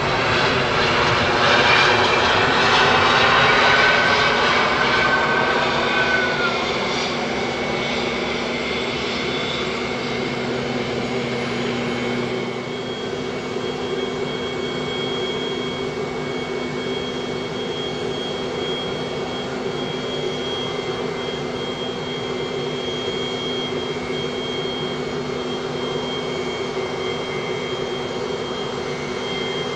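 Airbus A320's IAE V2500 jet engines during the landing rollout. The sound is loudest for the first six seconds or so, with a whine sliding down in pitch, then settles into a steady idle run with thin high whining tones from about twelve seconds in.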